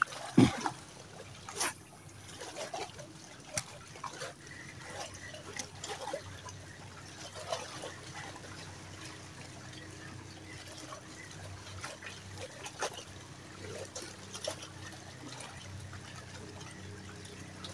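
Shallow seawater sloshing and trickling around the legs of someone wading through it, with scattered small splashes, the sharpest near the start.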